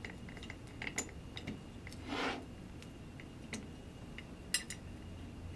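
Small metal clicks and taps of an Allen wrench turning a screw to fasten a wheel assembly onto a camera slider. A brief rubbing swish comes about two seconds in, and a sharper click near the end.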